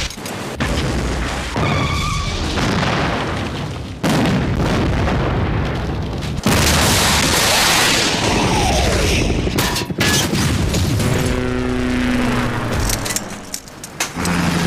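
Explosions at a fuel station, as staged for television: a string of sudden booms and blasts, the loudest about six and a half seconds in.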